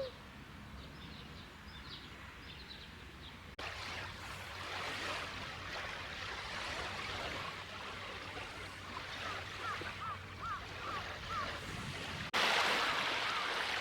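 Lakeshore ambience: a steady rush of wind and lake waves, with a run of short chirping calls about two-thirds of the way through. The sound jumps louder abruptly twice.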